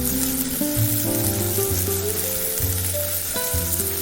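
Potatoes, onion and tomato sizzling as they fry in oil in a pan, with background music of held notes over it.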